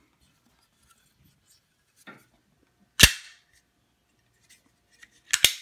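Hard parts of a Tavor Podium bipod and its packaging being handled: a soft rustle, then one sharp click about three seconds in, and a couple of quick clicks near the end.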